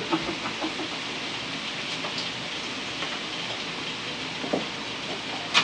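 Pork belly and sausages sizzling steadily on a tabletop grill pan: an even hiss of frying fat.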